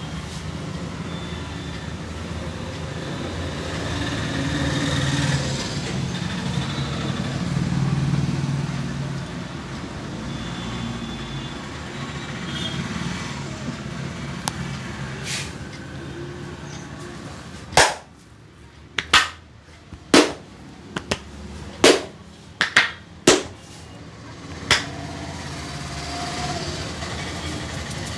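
Steady street traffic noise, then about ten sharp hand slaps in quick, uneven succession over some seven seconds, typical of the slapping strokes of an Indian head and body massage.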